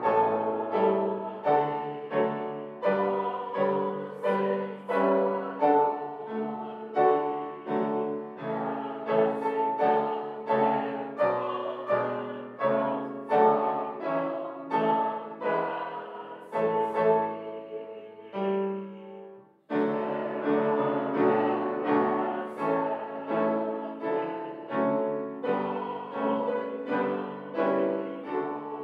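Grand piano playing chords at a steady pace, each struck chord ringing and fading. It stops briefly about twenty seconds in and then starts again.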